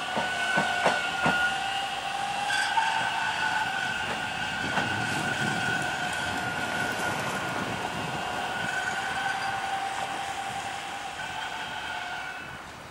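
TTC T-1 subway train running slowly along open track, giving a steady high-pitched whine, with a few clacks of the wheels over rail joints in the first second and a half.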